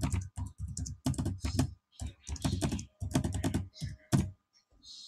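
Typing on a computer keyboard: quick runs of keystrokes that stop a little past four seconds in.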